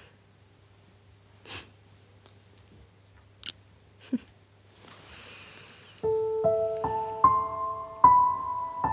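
Near quiet with a few faint small noises, then from about six seconds in a piano plays slow single notes, each left ringing, mostly climbing in pitch.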